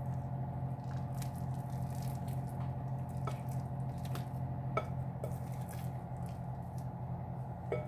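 Thick, crumbly pie filling being scraped out of a mixing bowl with a spatula into a pie crust: soft squishing, with a few light clicks and scrapes of the spatula. A steady low hum runs underneath.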